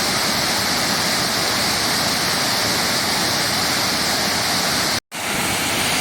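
Waterfall pouring steadily, a dense even rush of falling water, broken by a split-second dropout about five seconds in.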